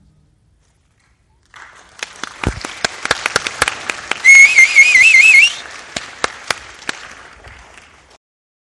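The band's last chord dies away, then audience applause breaks out. A loud, warbling whistle from the crowd rises and falls about five times a second for just over a second, and the applause cuts off abruptly near the end.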